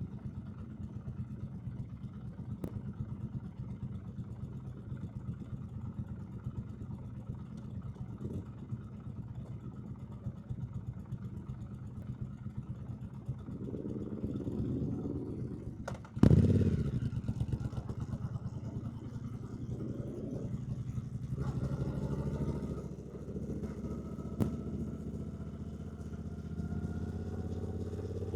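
2024 Triumph Bonneville T120's 1200 cc parallel-twin engine running steadily at low revs, then pulling away with revs rising. A sharp clunk about sixteen seconds in is the loudest moment.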